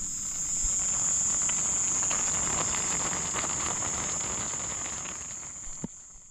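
Crickets and other night insects trilling steadily at a high pitch, with a rustle and faint clicks underneath and a short knock near the end, all fading out at the close.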